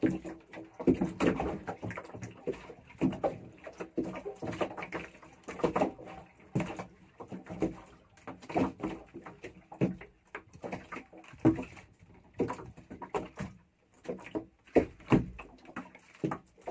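Irregular knocks and short sloshes on a small wooden fishing boat, about one or two a second: water slapping the hull and the boat knocking as it rocks.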